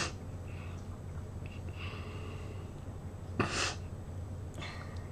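A girl with a stuffy nose gives one short, sharp snort through her nose about three and a half seconds in, over a steady low hum.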